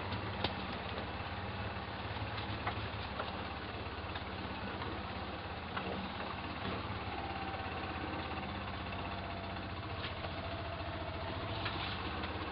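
Golf cart engine running steadily as the cart drives over rough ground, with a few sharp knocks and rattles.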